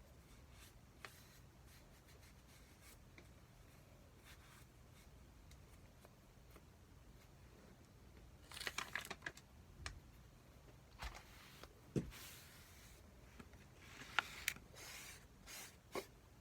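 Quiet room tone for about eight seconds, then short irregular bursts of crinkling and tearing from plastic delivery-food packaging being handled and opened, with a few light knocks.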